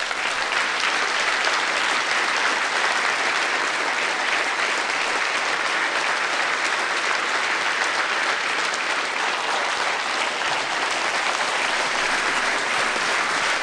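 A large audience applauding in a long, steady round of clapping at the close of a speech.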